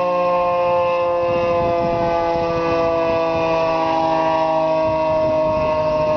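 Federal Signal 3T22 three-tone outdoor warning siren sounding a steady, loud chord of several tones, the pitch sagging slowly downward.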